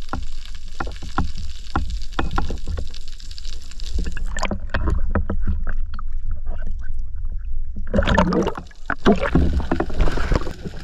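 Seawater sloshing and splashing around an action camera at and just below the sea surface, with a deep rumble and many sharp clicks throughout. A louder splashy stretch comes near the end.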